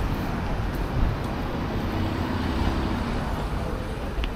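Street traffic: a steady background of passing vehicles' engines and tyres.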